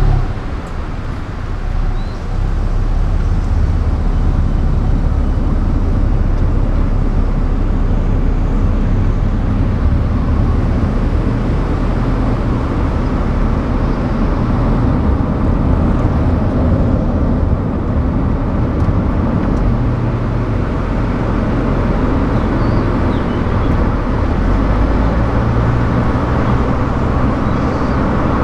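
Car driving along a highway: a steady rumble of tyres and engine, with a brief dip in loudness in the first couple of seconds.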